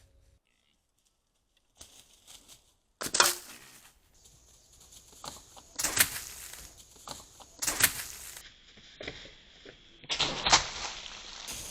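Deer bucks making a series of short, sharp bursts of noise, about five in all, a second or two apart, over a faint background hiss.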